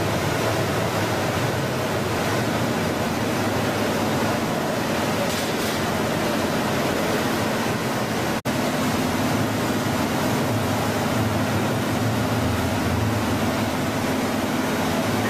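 Steady rushing of churning water and machine noise from a Vortex cook, quench and chill system working rice in its stainless perforated basket. There is a brief break about eight seconds in, after which a low steady hum runs under the rushing.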